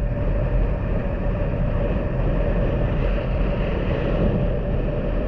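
Honda Super Cub's single-cylinder engine running steadily at cruising speed, with wind buffeting the microphone.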